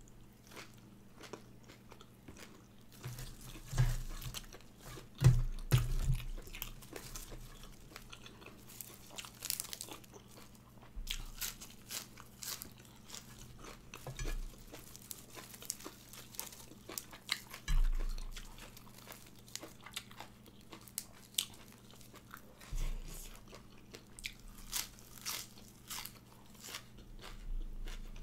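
A person chewing and crunching mouthfuls of lettuce wrapped around raw shrimp salad, many small crisp crunches, with a few louder bites about four to six seconds in.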